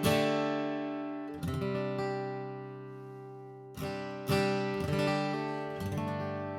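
Gibson Hummingbird square-shouldered acoustic guitar strummed in open cowboy chords, each chord struck and left to ring out for a second or two before the next strum.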